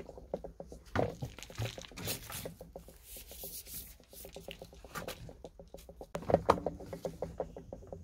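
Handling noise from a Kärcher wet-and-dry vacuum cleaner, with its motor off: a run of small clicks, rubs and knocks as the hose is moved and the lid is taken hold of, with a louder knock about six seconds in.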